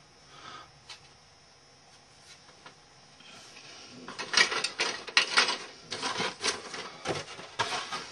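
Model kit box and its contents being handled. It is quiet for the first few seconds, then from about four seconds in comes an irregular run of rustling, rubbing and light knocks.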